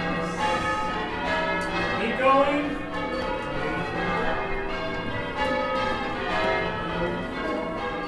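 Church tower bells rung full circle by hand from ropes in change ringing: overlapping bell strikes following one another in a continuous peal.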